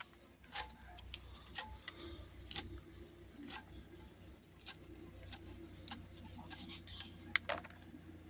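Leafy greens being sliced by hand against an upright bonti blade: sharp snicks as the stems are cut, roughly one a second, with a louder one near the end.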